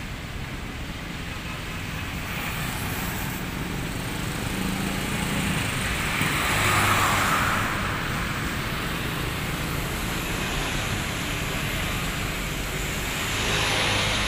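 Street traffic: a heavy truck pulling a loaded low-bed trailer goes by with motorcycles and cars passing close. The engine and road noise is steady and swells about halfway through and again near the end.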